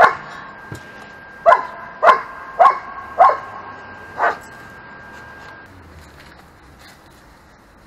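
Dog barking: six sharp barks in the first four and a half seconds, then it stops.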